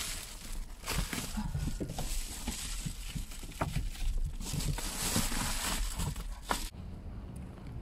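Crinkling and crackling of a reflective foil windscreen sun shade being unfolded and pressed against the inside of the windscreen. It stops about a second before the end.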